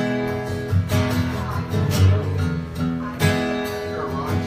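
Acoustic guitar strummed in chords, an instrumental passage of a live folk song.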